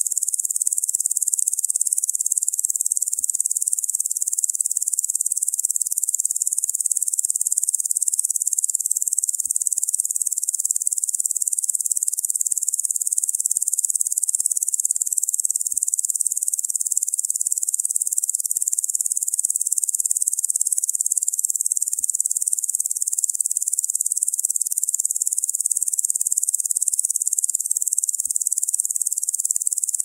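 Locusts buzzing: a steady, dense, high-pitched insect drone that never breaks or changes.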